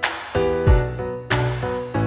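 Background music with a steady beat and a bright percussive hit about every second and a quarter, under pitched notes that change several times a second.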